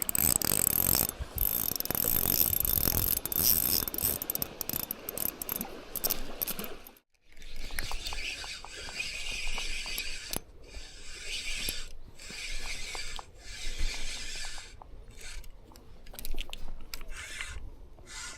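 Fishing reel ratcheting and buzzing in runs of clicking, with wind rumbling on the microphone for the first several seconds. The sound breaks off sharply about seven seconds in, then comes back in separate bursts lasting a second or two.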